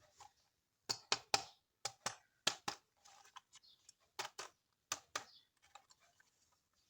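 Plastic toys and packaging being handled for an unboxing: about a dozen sharp plastic clicks and taps in small clusters of two or three, then a few fainter ticks near the end.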